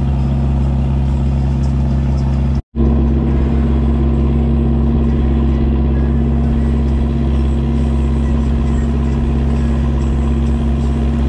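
Fishing boat's engine running steadily under way, a loud even drone with a brief break nearly three seconds in.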